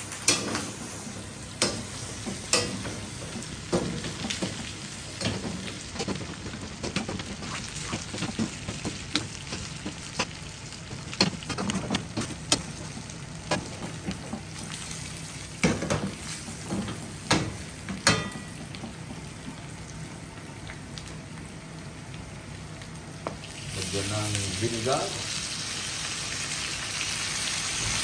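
Pork belly and whole garlic cloves sizzling in their own rendered fat in a steel wok, with a metal ladle repeatedly clanking and scraping against the pan as the meat is stirred. Toward the end the clanking stops and the sizzle grows louder and steadier.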